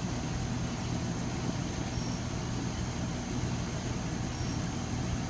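Steady low hum of a running machine, with a constant low drone that does not change.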